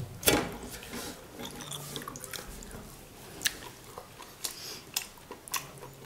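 Quiet eating sounds: someone biting and chewing food, with a handful of short, sharp clicks and taps at uneven intervals.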